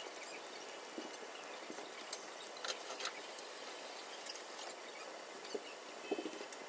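Soup boiling in a small stainless steel saucepan on a gas burner: a steady bubbling hiss with scattered small pops and clicks, a few sharper ones about two to three seconds in.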